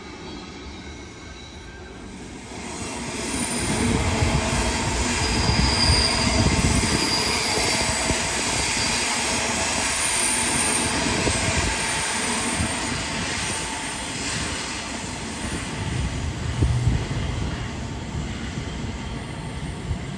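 Queensland Rail electric passenger train running along curving track, its wheels squealing against the rails over the rumble of the bogies. The sound builds about two seconds in, stays loud through the middle with thin high squeals, swells again near the end, then eases.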